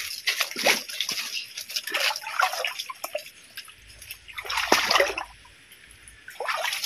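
Water splashing in a shallow creek: a quick run of irregular splashes over the first three seconds, then a single larger splash about five seconds in and another just before the end.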